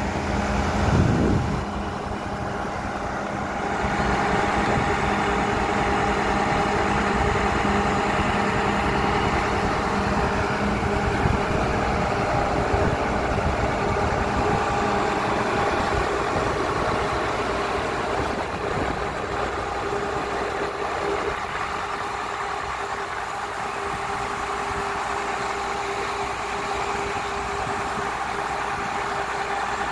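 ZT-18 horizontal directional drilling rig's engine running steadily as the rig works its drill rod. There is a brief loud swell about a second in, the engine gets louder about four seconds in, and its tone shifts a little after twenty seconds.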